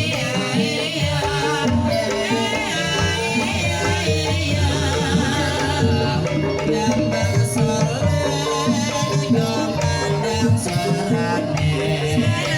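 Banyumasan gamelan music for an ebeg horse dance, with a steady pattern of short repeated metallophone notes, kendang drum strokes, and a singer's wavering vocal line over it.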